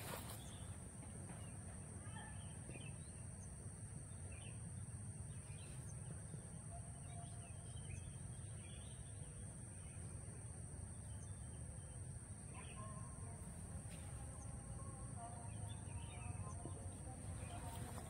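Faint, scattered short bird chirps, busier in the last few seconds, over a steady low outdoor rumble and a constant thin high-pitched whine.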